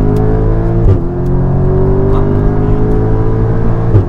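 Audi S3's turbocharged four-cylinder, remapped to Stage 1+, accelerating hard under full throttle, heard from inside the cabin. The engine note climbs steadily, then drops sharply at an upshift about a second in and again near the end. Each shift is marked by a short, loud crack.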